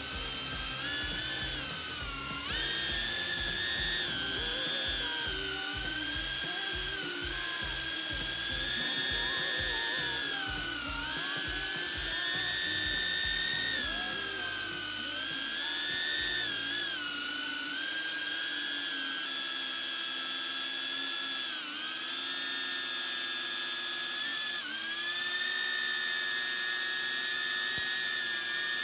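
DJI Avata FPV drone's ducted propellers whining in flight, their pitch rising and falling with the throttle. The sound is recorded by an Apple Watch strapped to the drone, so the propellers sound close and loud.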